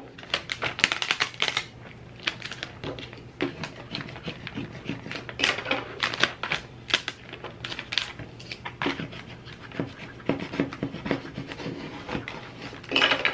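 Clear vinyl transfer tape crackling and rustling as it is peeled up off the backing sheet and pressed back down by hand over cut vinyl letters, in an irregular string of small sharp crackles and rubbing scratches.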